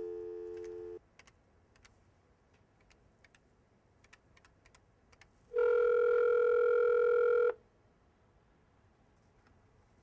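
Desk telephone heard over its speakerphone: a steady dial tone that cuts off about a second in, a run of faint keypad clicks as a number is dialled, then the line ringing once, a ringback tone of about two seconds, as the outside number is called.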